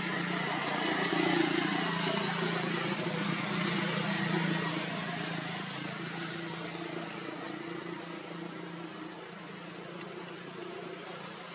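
A steady low motor hum, like an engine running, with an even hiss over it. It eases off a little after the first few seconds.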